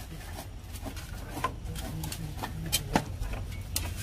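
Scattered light knocks, clicks and scrapes of hand work: a spade being worked in soil and plastic drain pipe and sump fittings being handled. Under them runs a low steady rumble.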